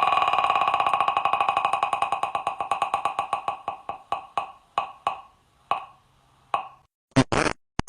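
A Wheel of Fortune wheel-spin sound: rapid clicks that space out steadily as the wheel slows and stop about six and a half seconds in. A short noisy burst follows near the end.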